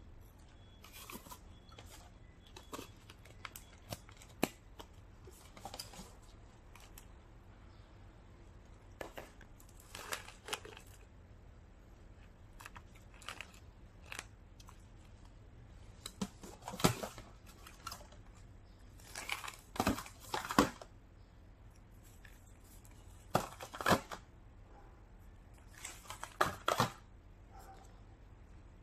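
Intermittent handling noises from popcorn packaging: foil crinkling and cardboard canisters being moved and knocked. The short rustling bursts get louder in the second half.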